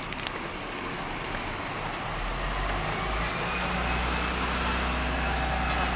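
Rail turntable turning with a diesel track-inspection railcar on it: a steady low mechanical hum and running noise, with a thin high squeal for a second or two about halfway through.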